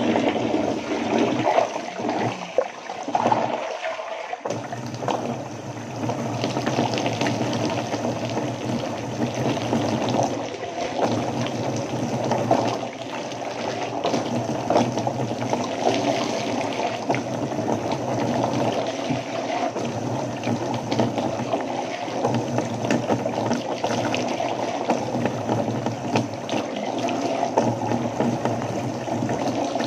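Water running steadily from a bathtub faucet, with water scooped in a plastic dipper and poured over hair, splashing into the tub.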